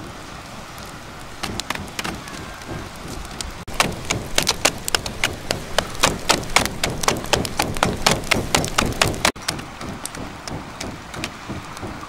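Open wood fire crackling, with quick sharp pops that come thick and loud for about five seconds in the middle and sparser before and after.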